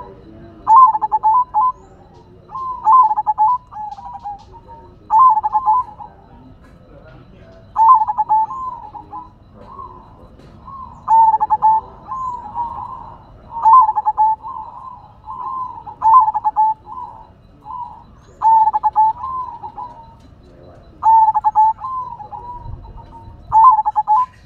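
Zebra dove (perkutut) cooing its rhythmic song, repeating a short trilled phrase about every two to three seconds, with softer coos between.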